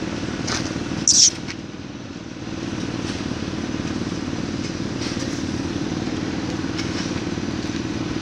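A steady mechanical drone, like an engine running, with a brief hiss about a second in.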